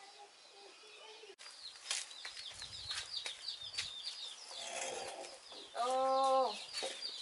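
Domestic chicks peeping: many short, high, falling cheeps overlapping, starting about a second in, with light clicks among them. About six seconds in there is a single louder held call lasting under a second.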